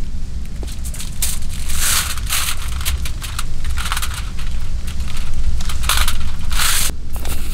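Aluminium foil crinkling and crackling in short, irregular bursts as hands press on a raw trout lying on it, stuffing its belly with chopped garlic.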